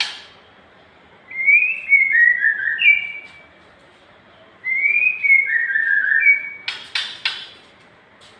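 Nias hill myna singing in loud clear whistles: two phrases, each a run of notes stepping down in pitch, followed by three short harsh clicks.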